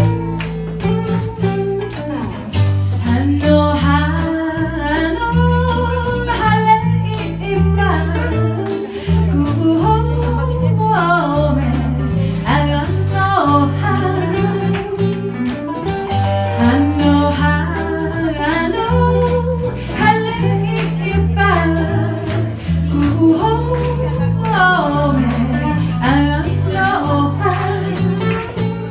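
Live band music: women singing over acoustic guitar and an amplified guitar, with a steady low bass line.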